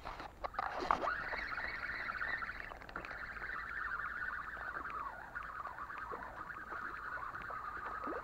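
Spinning reel being wound in, a steady whirring that starts about a second in and carries on throughout, with a few light clicks: line being retrieved with a fish on.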